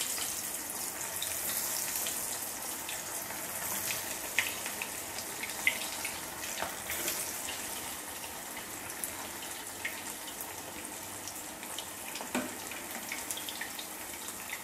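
Potato-and-breadcrumb cheese balls deep-frying in hot oil in a steel pot: a steady sizzling hiss with scattered small pops and crackles.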